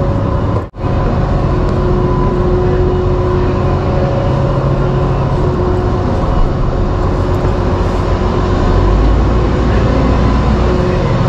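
Steady drone of running ship machinery: a heavy low rumble with a few held humming tones. It cuts out briefly under a second in, and the low rumble grows a little stronger near the end.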